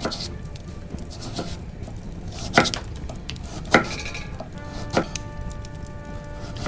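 Sharp knocks about once a second over steady background music.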